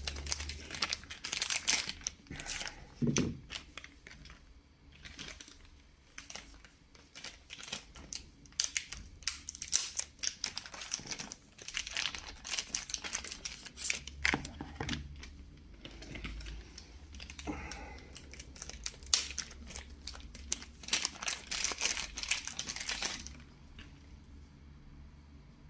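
Plastic packaging bag crinkling and rustling as it is handled, in a dense irregular crackle with a few louder knocks, dying down near the end.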